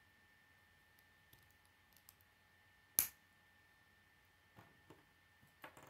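K'nex plastic pieces being snapped together by hand: one sharp click about three seconds in as a rod snaps into a connector, with a few softer plastic clicks and taps before and after it.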